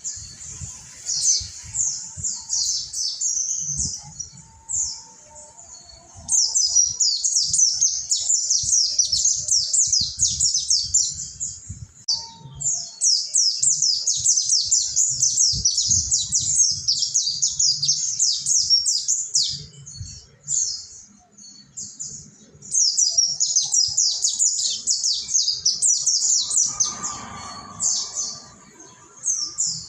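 A pleci Monty (mountain white-eye) singing in long bouts of rapid, high twittering chirps, broken by short pauses.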